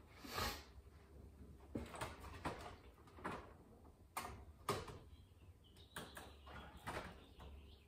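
Quiet, scattered clicks, taps and rustles of hands working at the plastic housing of a wall-mounted ductless mini-split indoor unit, about eight short sounds spread through, over a low steady hum.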